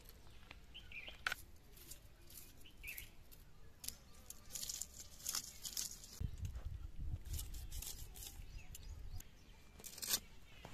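Fish being scaled by hand against a curved fish-cutting blade: a scatter of short, scratchy rasps as the scales are scraped off.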